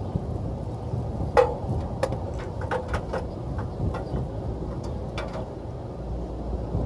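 Scattered metallic clicks and clinks of tools and hose fittings being handled, the sharpest about a second and a half in with a brief ring, others clustered a couple of seconds later and one more near the end, over a low rumble of wind on the microphone.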